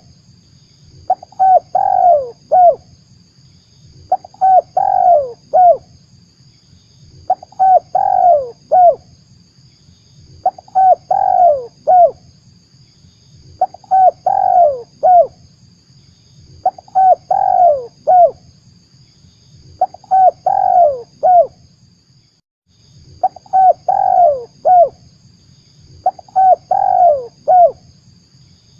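Spotted dove (tekukur) cooing: the same short phrase of several falling coo notes repeated about every three seconds, nine times over, as a lure call for drawing in wild doves. A faint steady high whine runs beneath it.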